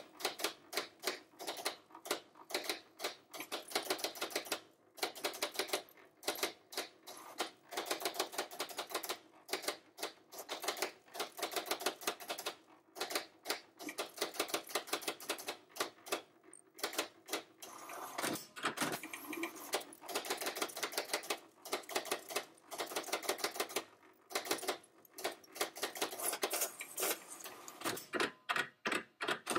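HP 7475A pen plotter drawing a chart: rapid clicking and whirring as its motors drive the pen carriage and the paper back and forth, and the pen lifts and drops.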